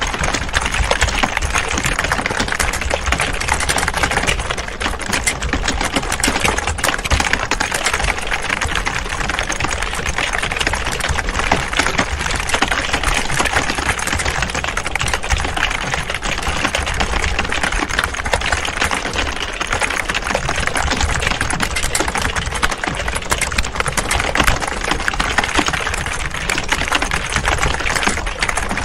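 Many computer keyboards being typed on at once: a dense, steady clatter of overlapping key clicks.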